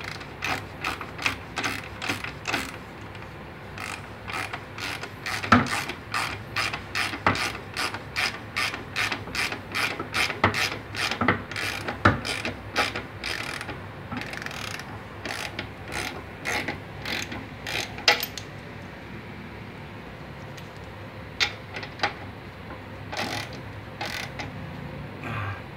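Socket ratchet wrench clicking as it turns the nut on the bolt of a Toyota Avanza's rear stabilizer bushing, about three clicks a second with short breaks. The run stops about two-thirds through, and a few more single clicks come near the end.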